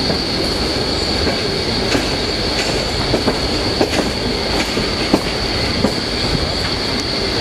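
Passenger train running slowly, heard from a carriage window: a steady rumble of wheels on rail, a steady high-pitched wheel squeal, and scattered irregular clicks of the wheels over rail joints.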